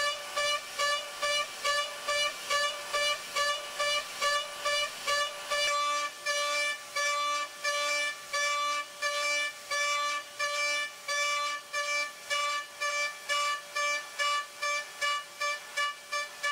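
Datron high-speed CNC milling spindle cutting aluminium: the end mill gives a whine of fixed pitch that pulses on and off about three times a second as it moves in and out of the cut. About six seconds in, the low rumble underneath drops away.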